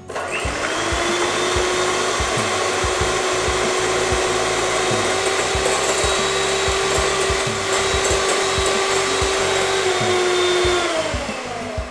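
Electric hand mixer running at a steady speed, its beaters whipping egg whites in a glass bowl, with a steady motor whine and irregular light knocks; the pitch drops as it is switched off near the end.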